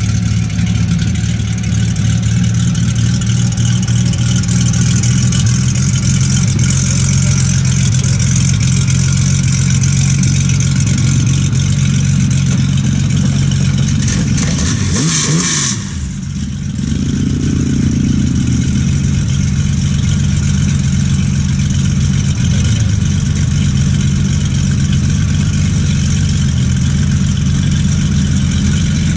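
Classic Porsche 911's air-cooled flat-six idling steadily with a deep, even note. About halfway through there is a short sweep in pitch and a brief burst of hiss, then the steady idle carries on.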